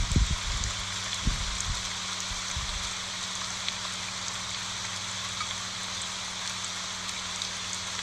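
Rain falling steadily on large elephant-ear leaves, an even hiss, with a few low dull thuds in the first three seconds.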